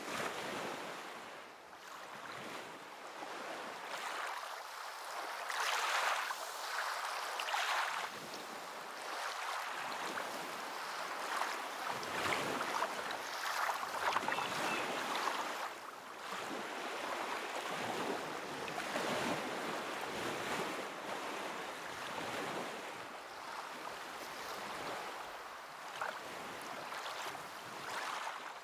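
Rushing, splashing water that swells and eases every few seconds, like surf or a fast stream, with no music heard.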